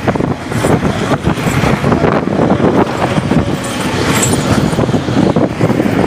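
Space Mountain roller coaster running on its track: a loud, unbroken rumble and rattle.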